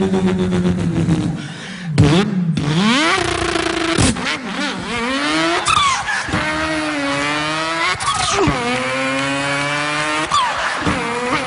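A man imitating a car engine with his voice: a held engine note that breaks off about two seconds in, then a run of rising sweeps in pitch, each dropping back and climbing again like an engine accelerating up through the gears.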